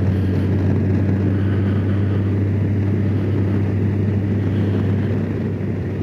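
2019 Honda Gold Wing Tour DCT's flat-six engine running steadily while riding, a constant low hum mixed with wind and road noise, dipping slightly in level near the end.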